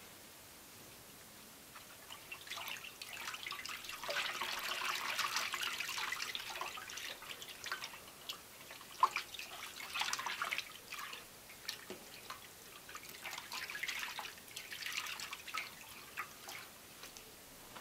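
Liquid sloshing, splashing and dripping as a length of cloth is pushed down, lifted and worked by hand in a steel pot of madder dye bath. It comes in several spells, the busiest a few seconds in.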